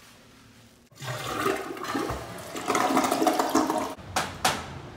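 Portable toilet flushing: a loud, gurgling rush of water for about three seconds, starting about a second in. Two sharp clicks or knocks follow near the end.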